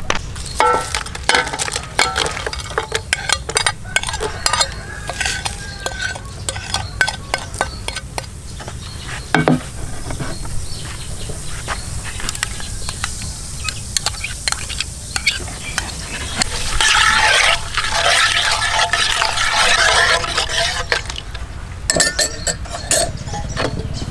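Ingredients and utensils knocking and clinking against a large aluminium cooking pot as seasoning, garlic, lemongrass and leaves are dropped into cola in it. There are scattered sharp clicks throughout, and a few seconds of dense crackling noise past the middle.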